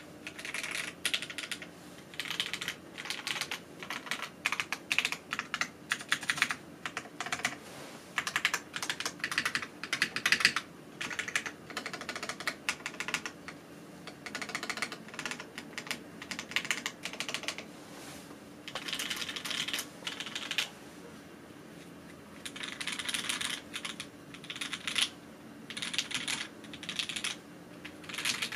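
Mechanical keyboard with vintage Cherry MX Black switches on an aluminium plate being typed on: runs of rapid keystrokes in bursts, with short pauses between them.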